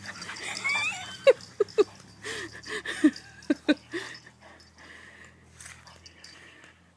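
Dog giving a string of short, sharp barks between about one and four seconds in.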